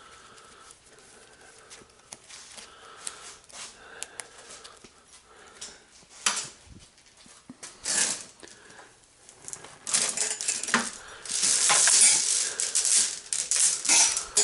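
Clinks and rattles of metal-armored BX cable being handled and dragged, with scattered knocks at first and a louder, longer rattling scrape of the spiral metal armor starting about ten seconds in.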